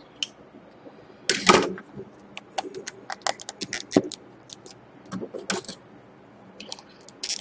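Clear hard-plastic card box case clicking and rattling as fingers pry at its tight, stuck lid; irregular clicks, the loudest about a second and a half in.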